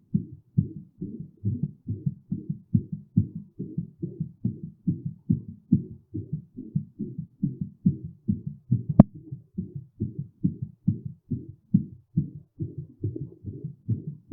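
Human heartbeat heard up close, a steady, fast lub-dub rhythm of dull, muffled beats. A single sharp click cuts across it about nine seconds in.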